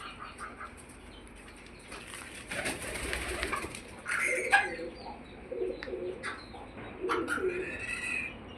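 Hen clucking in a series of short, low notes, with a rustling noise of movement a couple of seconds before the clucks start.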